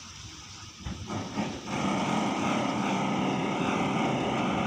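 Backhoe loader's diesel engine comes up to a loud, steady run about a second and a half in, after a quieter start.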